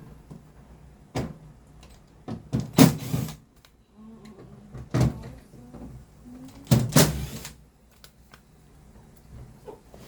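Plastic and metal parts of a stand air conditioner being handled while it is taken apart: scattered knocks and clicks, with two short scraping rasps, one about three seconds in and one about seven seconds in.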